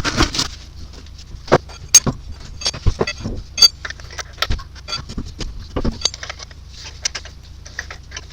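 Metal tools and wheel hardware clinking and knocking as a car wheel is refitted: a string of irregular sharp clanks, several with a short metallic ring.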